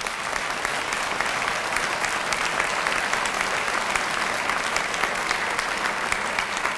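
Audience applauding: steady, dense hand clapping.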